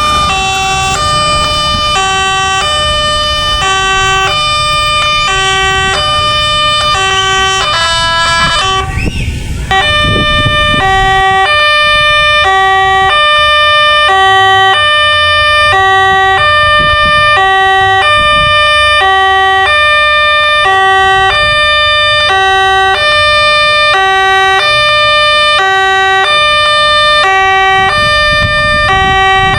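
Railway level-crossing warning alarm: an electronic siren alternating steadily between a lower and a higher note, about one of each per second, over a low rumble. The pattern breaks off briefly about nine seconds in and resumes louder.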